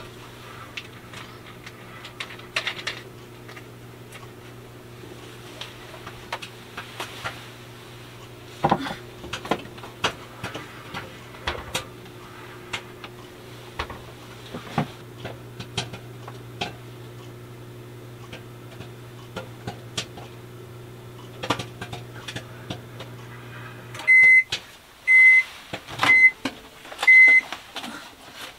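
RCA microwave oven running a popcorn cycle with a steady low hum, scattered with a few sharp clicks. About four seconds from the end the hum cuts off and the microwave beeps four times, about a second apart, to signal that the cycle is done.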